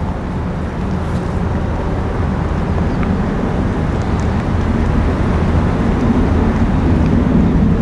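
Large motor yacht's engines running as it cruises toward the listener, a steady low rumble that slowly grows louder toward the end.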